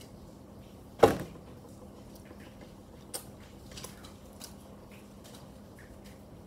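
A single sharp thump about a second in, followed by a few faint clicks, over a faint steady low hum.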